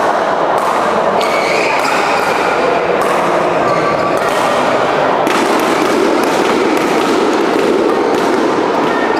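Badminton rally: several sharp racket-on-shuttlecock hits and thuds of footwork on the court mat, spaced irregularly about a second or more apart, over a steady din of chatter and play in a busy sports hall.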